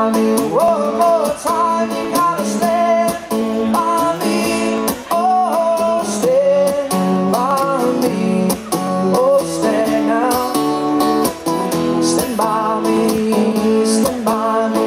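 Two acoustic guitars strummed and picked together while a man sings a melody into a microphone, a live acoustic song played at full volume.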